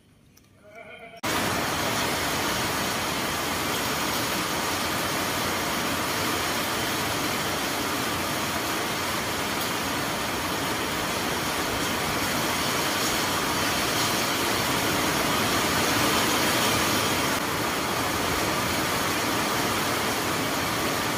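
Steady, even rushing hiss that starts abruptly about a second in and holds level throughout.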